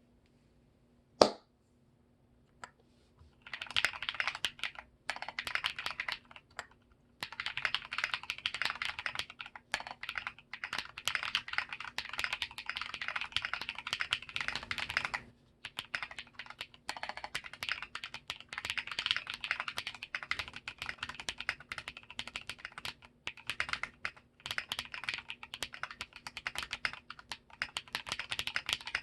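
Typing on a TOFU65 mechanical keyboard with lubed Drop Holy Panda tactile switches, a brass plate and MT3 keycaps: fast runs of key clacks broken by a few short pauses. A single sharp click, the loudest sound, comes about a second in, before the typing starts a couple of seconds later.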